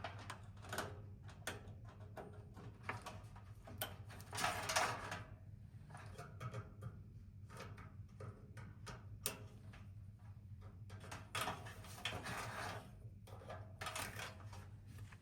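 Irregular clicks, knocks and rustles of hard objects being handled and set down, over a steady low hum.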